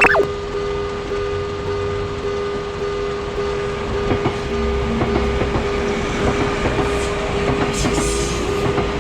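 Tokyu Ikegami Line train passing over a level crossing, its wheels clacking irregularly over the rail joints from about four seconds in. The crossing's electronic alarm rings in an evenly repeating tone under it.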